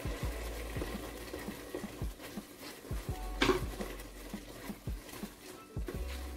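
Long wooden spatula stirring soup in a large aluminium stock pot, with soft scrapes and knocks against the pot and one louder knock about three and a half seconds in.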